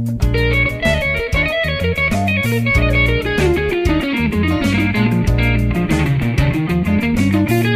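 Stratocaster electric guitar playing fast jazz-funk lead lines over a Bb7 groove, against a backing track of bass and drums. In the second half a quick run dips down and climbs back up.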